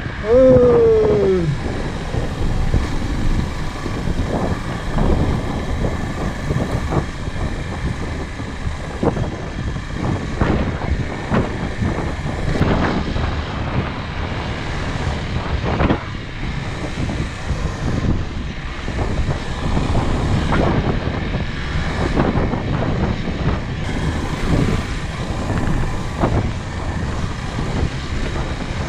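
Hero Xpulse 200 motorcycle's single-cylinder engine running under way, heavily mixed with wind buffeting on the microphone. A short falling tone sounds at the very start.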